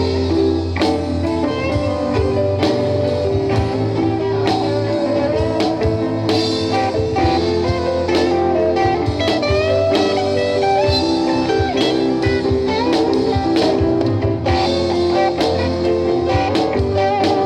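A band playing an instrumental break with no vocals: a guitar lead with bending notes over steady drums and bass.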